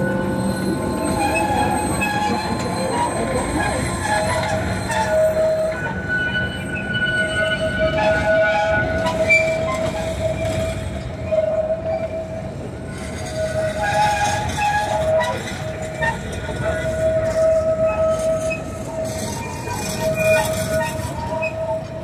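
A train of open-air passenger cars rolling past on the rails, with a high wheel squeal that comes and goes throughout.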